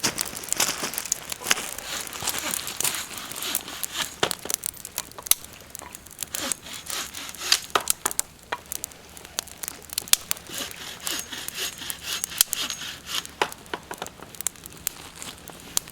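Small campfire of twigs and timber catching, with irregular sharp cracks and snaps of wood over a light hiss.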